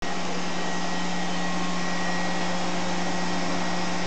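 Perfecta 92 TVC paper guillotine's motor running steadily while idle: a constant low hum under an even, blower-like hiss.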